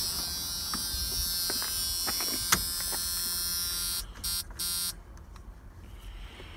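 A steady electric buzz for about four seconds, cut off and then sounding twice more in short bursts.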